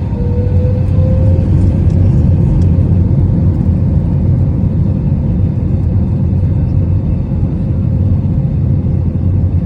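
Cabin noise of an Airbus A319 in flight: a loud, steady low rumble of engines and airflow, with a faint thin tone that rises slightly about half a second in and then holds.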